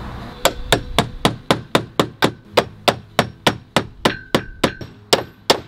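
Claw hammer tapping a brass pipe fitting on a copper pipe: a steady run of quick, light metal-on-metal blows, about four a second, beginning about half a second in, with a short ring after each.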